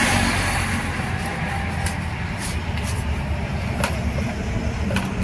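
Strong wind rumbling and buffeting on the microphone, with a few light clicks.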